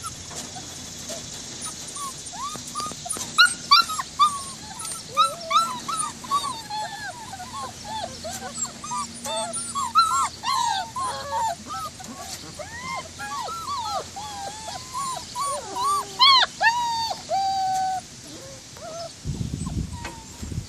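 A litter of white German Shepherd puppies whining and whimpering over one another, many short rising-and-falling cries, with a few sharper, louder yelps and one longer held whine near the end.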